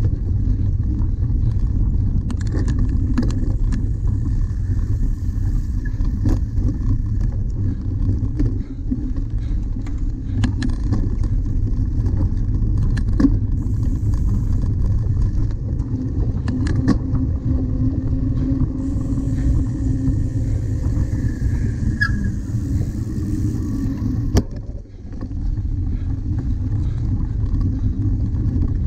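Wind buffeting the microphone and tyre rumble while riding a cyclocross bike over bumpy grass and dirt, a steady low rumble with scattered rattles and knocks from the bike over bumps.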